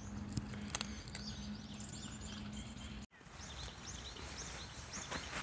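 Small birds chirping repeatedly in the background, with a few soft clicks in the first second as a cat crunches dry kibble. A faint steady hum underneath cuts off suddenly about three seconds in.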